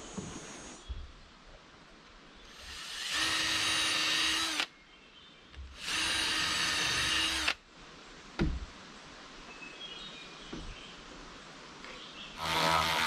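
Power drill running in three bursts of one and a half to two seconds each, the first two about a second apart and the third near the end, with a single sharp knock between them.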